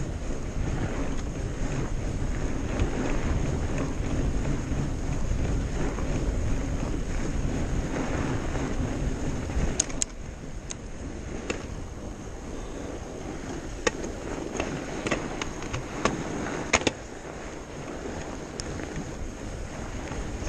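Fat bike riding along a snowy trail: a steady rumble of the tyres and wind on the microphone, heavier for the first half and softer after about halfway. Sharp clicks and rattles from the bike over bumps come in the second half.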